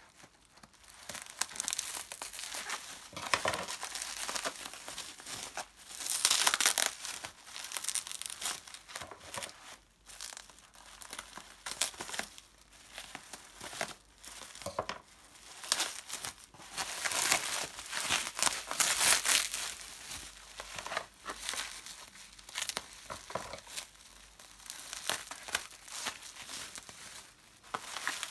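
Plastic bubble wrap crinkling and rustling as hands handle it and pull it open, in irregular bursts that come loudest in two spells, a few seconds in and again past the middle.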